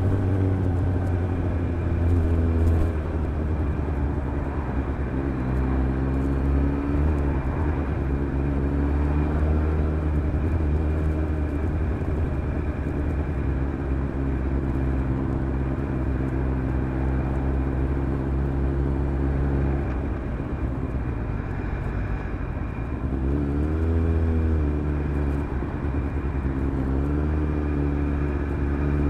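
Suzuki GSR750's inline-four engine through a Fuel stainless MicroMini aftermarket exhaust with its dB-killer fitted, running at a steady low town speed. About two-thirds of the way through it eases off and goes quieter, then picks up revs again with a rising note, and rises once more near the end.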